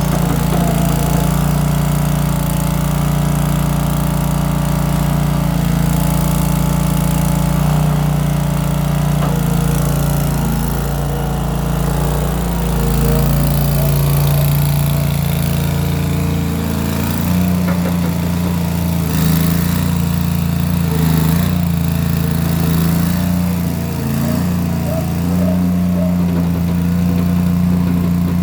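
Case 1816 skid steer's replacement engine running steadily, its exhaust going out through small round mufflers. About halfway through, the engine note shifts up a little as the machine works.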